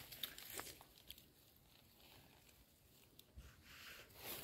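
Near silence, with a few faint soft clicks.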